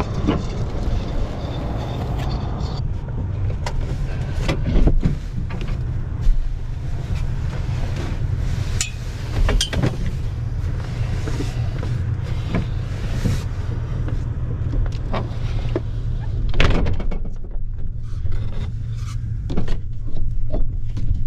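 Scattered knocks, clicks and rustling as someone lifts a truck camper shell's rear glass and climbs into the truck bed, over a steady low rumble.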